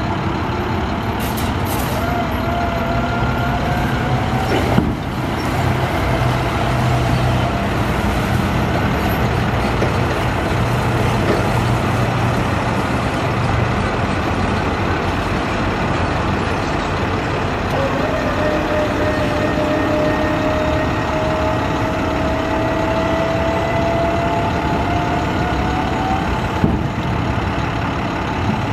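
Maxxforce DT diesel of an International 4300 truck running steadily while hydraulics lower and raise its U-MAD truck-mounted attenuator. Twice a whine slowly rises in pitch as the cushion moves, and each movement ends with a single knock, about five seconds in and near the end.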